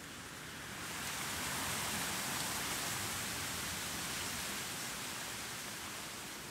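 Outdoor breeze blowing as an even hiss, swelling into a gust about a second in and slowly easing off toward the end, with a very light city noise underneath.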